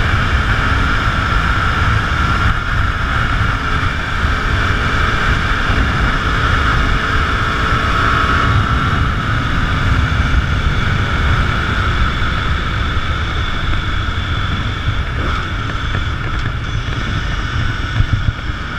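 Motorcycle riding at steady cruising speed: the engine drones under a loud, continuous rush of wind on the microphone.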